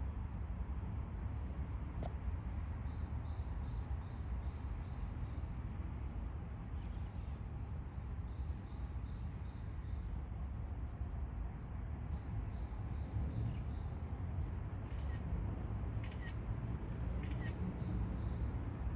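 Outdoor background with a steady low rumble and faint, rapid high chirping in two stretches. A single click about two seconds in, and three short, sharp high sounds about a second apart near the end.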